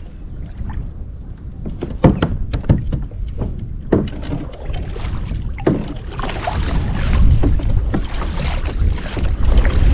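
Water sloshing and splashing around a kayak, with wind buffeting the microphone. There are a few sharp knocks about 2 and 4 seconds in, and the splashing grows louder from about six seconds on.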